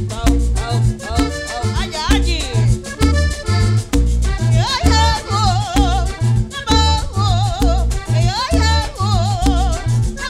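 A live Panamanian música típica band playing an instrumental passage: accordion melody over a steady bass beat and quick percussion strokes, with the melody wavering in fast trills from about halfway through.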